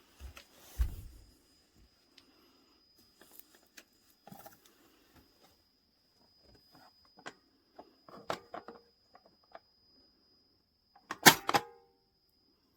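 Scattered light clicks and knocks of objects being handled, with a louder clatter near the end, over a faint steady high-pitched whine.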